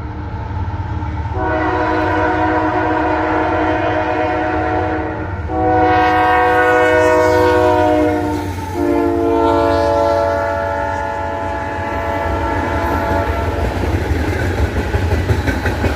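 Union Pacific SD70ACe locomotive's multi-chime air horn sounding in long blasts, its pitch dropping sharply about nine seconds in as the locomotive passes at speed, then fading out. Under it runs the diesel's low rumble, and in the last few seconds the rattle and clatter of freight cars' wheels over the rails.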